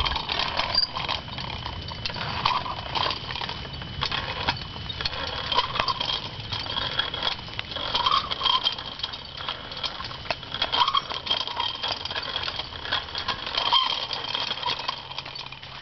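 Small children's bike with training wheels rolling over a concrete sidewalk, the wheels and frame rattling and clicking irregularly, with footsteps walking alongside.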